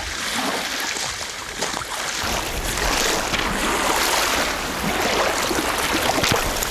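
Wind-driven waves washing against a reservoir shore, with wind buffeting the microphone; the rush grows louder about two and a half seconds in.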